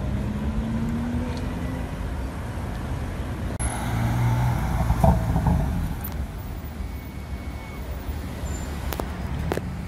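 Street traffic, then a BMW coupe accelerating past, its engine sound building to a peak about five seconds in, with a short sharp spike at the peak, before fading back into the traffic.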